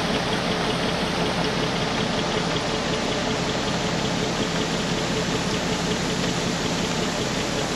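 Heavy farm machinery engine running steadily, with a faint steady whine over a dense, even noise.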